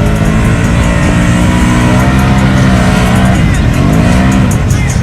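A loud truck engine running hard, its pitch dipping about three seconds in and then climbing again as it is revved.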